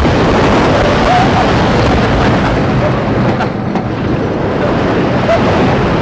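Roller coaster in motion from a front-seat rider's view: a loud, steady rush of wind over the microphone mixed with the train rumbling along the track.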